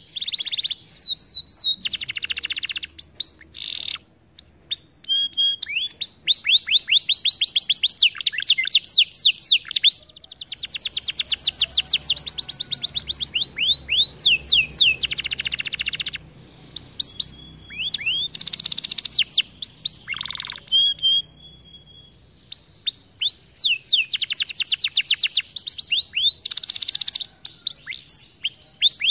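Domestic canary singing: fast, high trills of quickly repeated sweeping notes, strung into phrases of a few seconds with short breaks between them.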